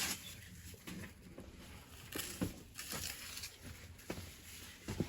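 A faint patter of rain, with a few scattered knocks and short scrapes.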